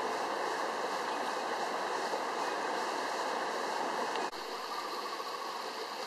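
Small mountain stream running over rocks in a low cascade, a steady rush of water. About four seconds in it cuts off sharply to a quieter steady hiss.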